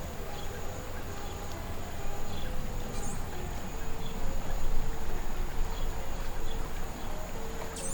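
Riverside ambience: a steady high-pitched insect drone over a low, gusty rumble of wind on the microphone. A bird gives short chirps about three seconds in and again near the end.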